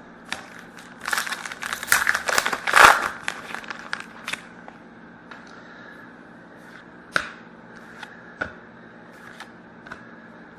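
Hockey card pack wrapper crinkling and tearing for about two seconds, starting about a second in, followed by scattered light clicks and taps of cards being handled.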